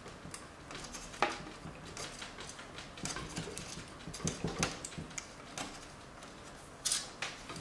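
Cables being handled and tucked into place inside a metal PC case: irregular light clicks, taps and short rustles as the plastic-sheathed leads and connectors knock against the case and drive cage. Louder knocks come about a second in and again near the end.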